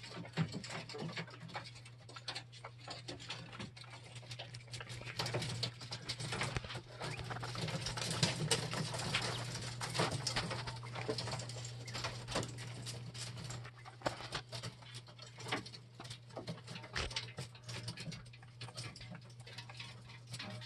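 Cage of young coturnix quail: rapid, irregular clicks and taps of the birds pecking and stepping on the wire-mesh floor and feeders, busiest in the middle, with soft bird calls over a steady low hum.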